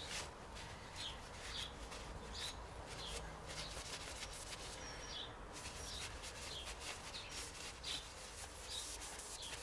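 A cloth rag rubbing over a gearbox's fifth-gear selector rod and fork: a run of faint, quick, irregular wiping strokes of cloth on metal.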